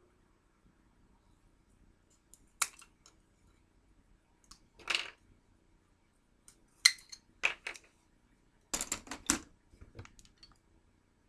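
Scissors cutting through hollow plastic Halloween chain links: a series of sharp clicks and short crunchy snaps, with a quick cluster of them about nine seconds in.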